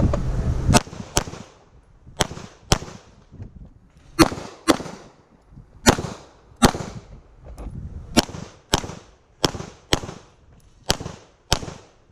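Handgun shots fired in double-taps: seven pairs of shots about half a second apart, a pair every one to two seconds, each shot with a short echo. This is a shooter's string of fire on a timed pistol-match stage.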